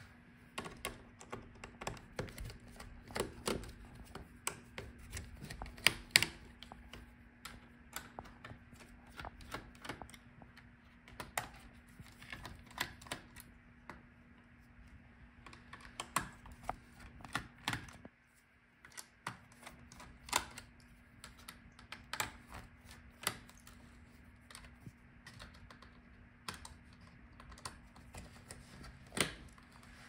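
A small screwdriver clicking and tapping on screws and the parts of a laptop's motherboard as the screws are taken out: an irregular scatter of light ticks and knocks, under which a faint steady hum runs.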